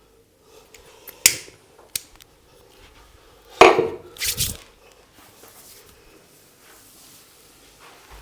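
Sharp percussive strikes of hands in a head massage: a crisp crack about a second in, a smaller one near two seconds, then the loudest, longer strike about three and a half seconds in, followed quickly by a short flurry.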